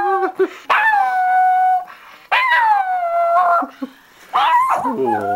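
A chihuahua howling with a sock in his mouth: the tail of one howl, then three drawn-out howls of about a second each with short pauses between. Each one rises briefly and then slides down in pitch.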